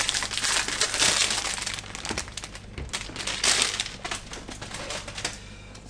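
Cardboard packaging box handled in the hands, with crinkling and rustling that comes in uneven bursts, then set down on a desk.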